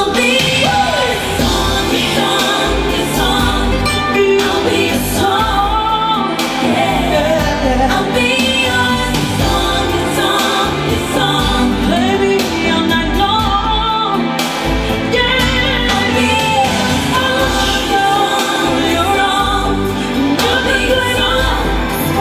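A song with singing over a pulsing bass, played through home-built speakers with Ciare PW 256 and Sica 9470 drivers as a sound-quality test.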